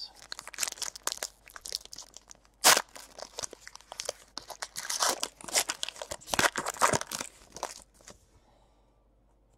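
A trading card pack's wrapper being torn open and crinkled, then the cards inside handled and flipped, as a run of irregular crackles and rustles. The loudest is a sharp crackle about three seconds in, and it dies away about eight seconds in.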